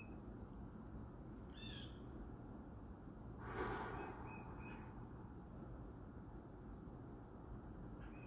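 Faint steady room tone, with one soft breath of air about three and a half seconds in: a slow exhale through the lips during counted 10-10 breathing.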